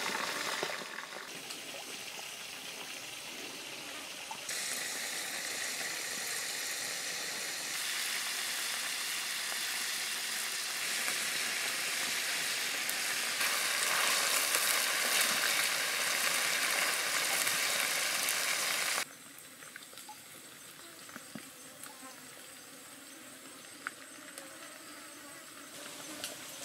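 Snake pieces deep-frying in hot oil in a wok, a steady sizzle that jumps louder or softer at a few edits. About two-thirds of the way through it cuts off suddenly to the quieter, even sound of a shallow stream running over rocks.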